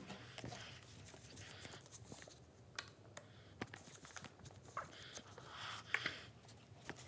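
Paper airplane being handled, its folds pressed and creased by fingers: faint, uneven paper rustling and crinkling with a few small sharp clicks.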